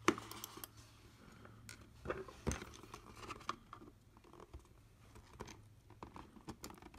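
Small clicks, taps and scrapes of a Logitech M570 trackball's plastic shell being handled and worked on during disassembly, with a sharp click at the start and another about two and a half seconds in, over a faint steady low hum.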